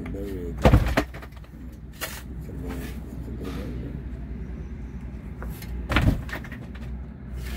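Two shovelfuls of soil landing in the grave on the wooden casket lid, each a short, loud thud with a rattle of falling earth: one about a second in, one near the end.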